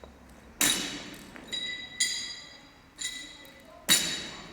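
Loaded barbell clanking: five metallic knocks over about four seconds, each with a brief high ring, the first and last the loudest.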